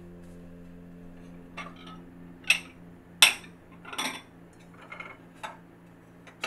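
Ceramic dishes clinking against each other as plates and bowls are lifted off a cupboard shelf: a string of short, sharp clinks, the loudest two near the middle.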